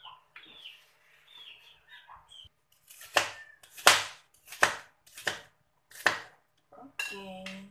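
Kitchen knife chopping bitter gourd on a plastic cutting board: five sharp chops about 0.7 s apart, starting about three seconds in. A brief pitched sound follows near the end.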